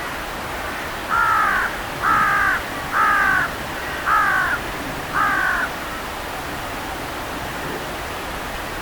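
A crow cawing five times, about one harsh, falling caw a second, then stopping.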